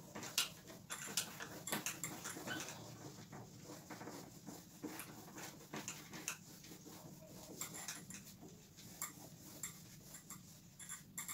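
A duster rubbing across a whiteboard in many short, irregular strokes as the written board is wiped clean.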